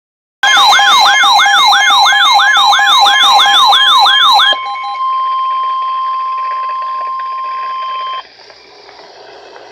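An electronic siren-like wail, falling in pitch and jumping back up about three times a second for about four seconds. It gives way to NOAA Weather Radio's warning alarm tone, one steady tone held for about three seconds, which cuts off to faint radio hiss.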